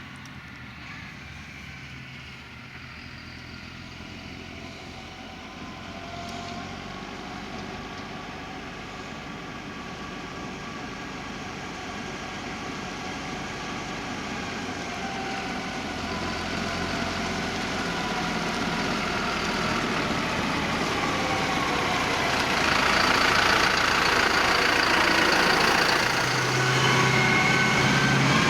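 Diesel engines of potato-harvesting machinery running and drawing steadily closer, growing louder throughout. A louder, harsher machine noise joins in about three-quarters of the way through.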